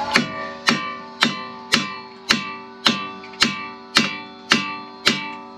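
Background music: an acoustic guitar strummed in a steady rhythm, about two strums a second, each chord ringing on until the next.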